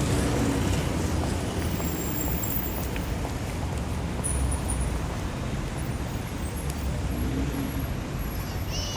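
City street traffic: a steady wash of car engines and tyre noise, with the low rumble of passing vehicles.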